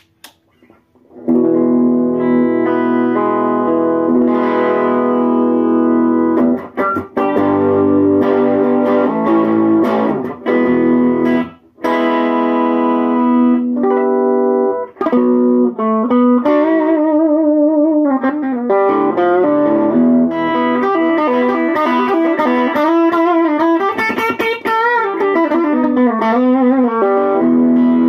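Donner DJP-1000 semi-hollow electric guitar played through a Monoprice 5-watt Stage Right tube amp, set at volume 8 in its 1-watt mode with no pedals for natural tube breakup. Blues chords and lead lines start about a second in, with bent notes and vibrato in the second half.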